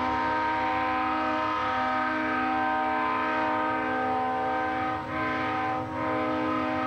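Diesel locomotive's air horn blowing a chord of several notes in a long held blast, broken briefly twice near the end into a short note and another long one: the long-long-short-long signal for a grade crossing.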